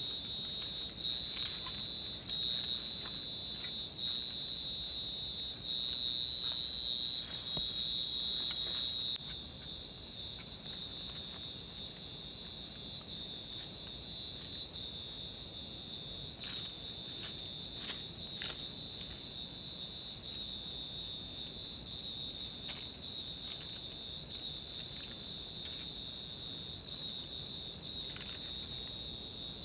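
Night insects in tropical forest keep up a steady high-pitched trill, a little louder for the first third, with many short ticks over it.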